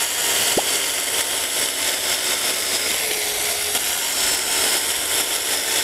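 Jupiter JMCS-18P cordless mini chainsaw, with a 4-inch bar and a brushless motor, cutting steadily through a log 7–8 cm thick. The chain keeps running at full speed, slicing cleanly through the wood without bogging down.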